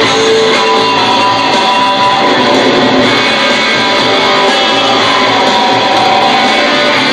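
Live rock band jamming with loud, distorted electric guitars holding and bending notes over drums, heard from the audience in a large arena.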